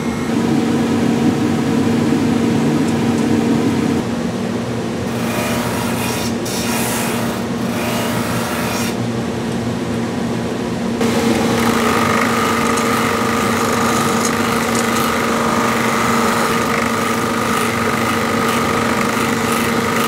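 Electric motor of a knife-sharpening grinder running with a steady hum, with the rasping grind of a steel knife blade held against the turning wheel. About eleven seconds in, a steady high whine joins the hum.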